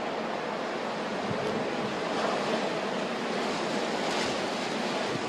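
Strong blizzard wind rushing steadily, with a few low buffeting thumps on the microphone.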